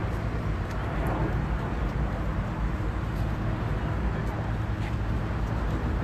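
Steady low rumble of car-show background noise, engines and crowd, with faint voices and a few small ticks.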